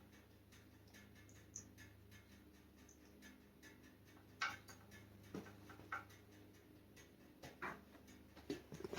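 Near silence: a faint steady low hum with a few scattered light clicks and ticks.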